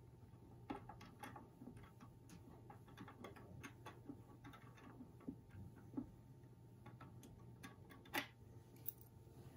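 Small mechanical clicks and ticks, irregularly spaced, from the knife's display-box mechanism as it lowers the knife into the box, with two sharper clicks near the end; a faint low hum runs underneath.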